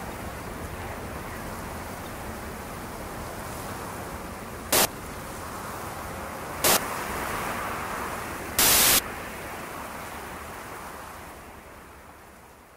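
Steady noisy roar of breaking surf, cut by three short, loud bursts of white-noise static: about five seconds in, about seven, and a longer one about nine seconds in. The roar fades away near the end.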